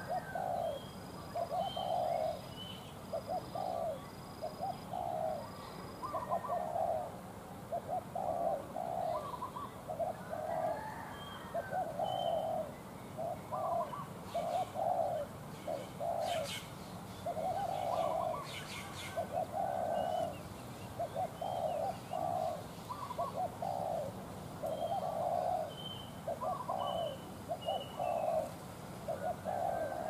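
Spotted doves cooing over and over, one coo phrase after another about every second with hardly a break. Faint high chirps from small birds sound behind them, and a few sharp clicks come a little past the middle.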